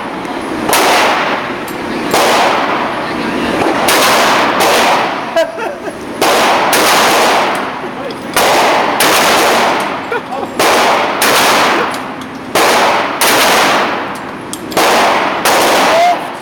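Shotgun shots fired one after another, more than a dozen at uneven intervals of roughly half a second to two seconds, each with a long echoing tail.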